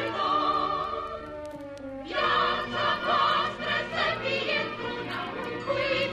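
A choir singing a song; the voices thin out for about a second, then come back in strongly about two seconds in.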